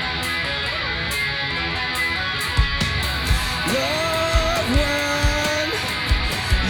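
Rock duo playing live: electric guitar strumming chords alone, then a kick-drum beat comes in about two and a half seconds in, and a melody line that slides up and holds joins about a second later.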